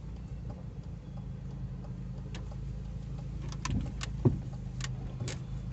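Car engine and road noise heard from inside the cabin while driving slowly, a steady low hum. Scattered light clicks and rattles run through it, with one sharp knock about four seconds in.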